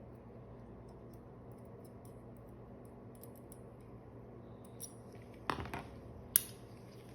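Suturing instruments being handled: faint scattered clicks, a clatter about five and a half seconds in and a sharp metallic click a second later, over a steady low hum.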